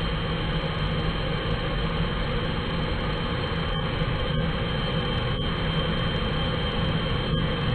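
Swiwin 170B model jet turbine running, a steady high whine over heavy rushing airflow, heard from a camera on board the RC jet.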